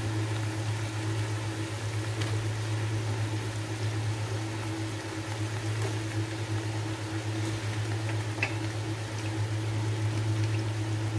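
Shrimp and vegetables cooking in a frying pan, a soft steady sizzle over a constant low hum, with a couple of faint utensil clicks.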